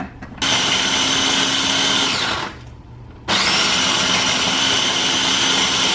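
Electric food chopper grinding Oreo cookies into crumbs, run in two long pulses: about two seconds, a short pause, then nearly three seconds. It is a steady motor whine that winds down in pitch at the end of the first pulse.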